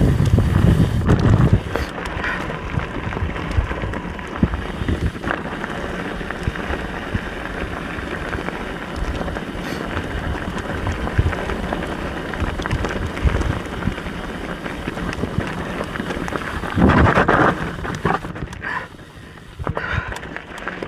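Mountain bike riding down a dirt trail: tyres rolling over dirt and rocks with many small knocks and rattles from the bike, and wind buffeting the action camera's microphone. There is a brief loud burst of wind noise about three-quarters of the way through, and the sound gets quieter near the end.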